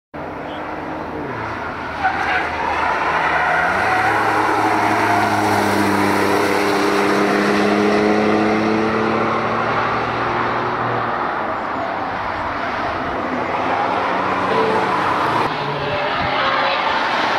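BMW i8 hybrid sports car prototype driven hard on a race track, its turbocharged three-cylinder petrol engine note rising and falling as it accelerates and eases off through corners, with tyre noise on the tarmac. The sound comes in suddenly and gets louder about two seconds in.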